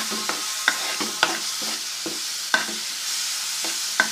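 Onion, garlic and spice masala sizzling in ghee in a pan as the spices roast, with a spoon stirring it and knocking against the pan several times.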